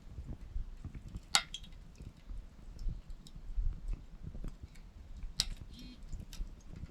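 Wood campfire crackling: scattered sharp pops and clicks, two louder ones about a second and a half in and again about five and a half seconds in, over a low rumble, with a brief light clink just after the second pop.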